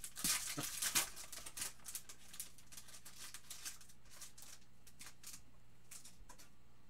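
Crinkly foil wrapper of a trading-card pack being opened, a dense run of crackles loudest about a second in. After that the cards themselves slide and flick against each other as they are sorted through, in sparser clicks.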